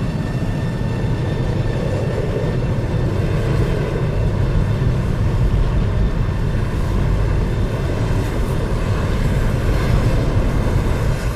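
Tornado wind rumbling steadily, a heavy, deep noise with no breaks.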